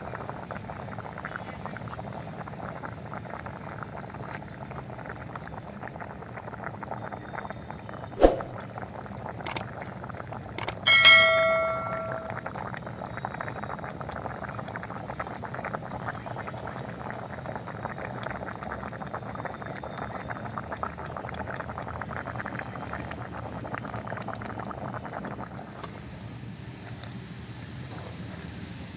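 Fish curry boiling steadily in a metal kadai. About eight to ten seconds in there are a few sharp clicks, then near eleven seconds a metal utensil strikes with one loud ringing clang that dies away within about a second.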